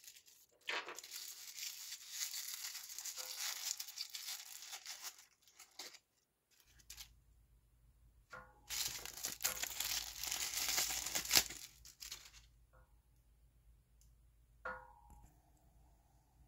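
Plastic packaging tearing and crinkling in two long spells of several seconds each, with light clicks in between.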